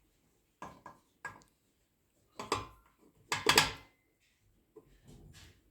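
A series of metal knocks and clatters from a steering column shaft and bearing being fitted into the column housing, the loudest about three and a half seconds in.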